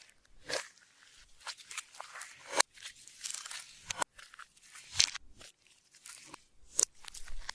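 Clear slime being squished and worked by hand: irregular sticky clicks and small pops, with a few sharper snaps.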